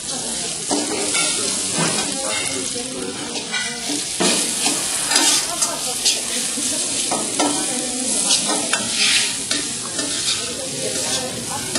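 Minced pork and dried shrimp sizzling in hot oil in an iron wok, stirred with a metal spatula that scrapes and clinks against the wok again and again. The pork is frying halfway to done.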